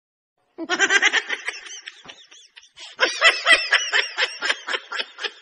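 Someone snickering: a rapid run of short, high-pitched laughs starting about half a second in, easing off, then a second, louder run about three seconds in.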